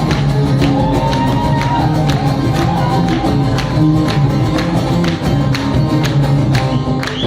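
Live music from an Iranian band: a held bass line and a melody that slides between notes, over steady hand-percussion strikes.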